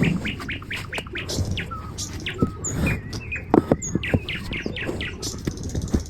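Birds chirping busily, a rapid string of short falling chirps, with a few sharp knocks a little past the middle.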